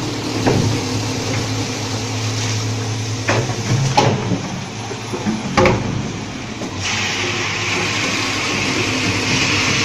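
Jar washing machine running: a steady motor hum with several sharp knocks, and a steady hiss that starts about seven seconds in.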